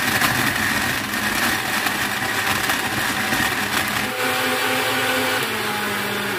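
Electric countertop blender running at full speed, its jug holding peach pulp, milk and ice; the clattering of ice against the blades eases about four seconds in, leaving a steadier motor whine.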